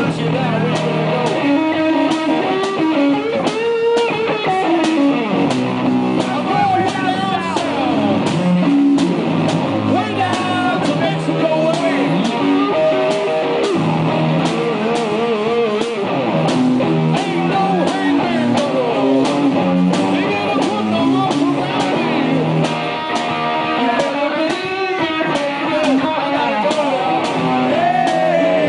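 One-man-band rock music played live: electric guitar with bent notes and vibrato over a steady beat from a bass drum and cymbal played with the feet.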